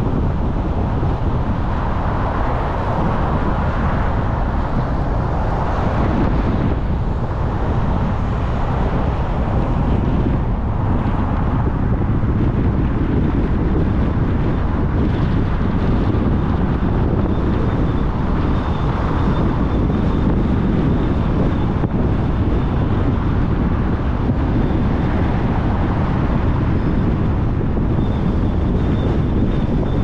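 Car driving: a steady rumble of tyre, road and wind noise, with no speech.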